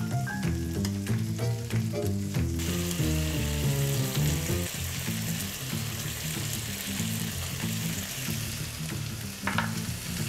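Lamb chops sizzling in oil in a hot grill pan, a steady frying hiss throughout as they are turned and salted. Soft background music with stepped low notes plays underneath, clearest in the first half.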